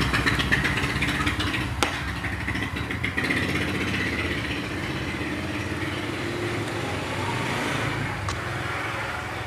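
A motor engine running steadily in the background, its pitch drifting slightly, with a single sharp click about two seconds in.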